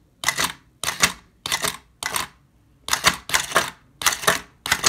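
Small geared electric motor of a model-car single-hop kit whirring in short bursts as the push-button switch is tapped, jerking the model lowrider's front end up and letting it drop. About ten bursts, roughly two a second, unevenly spaced.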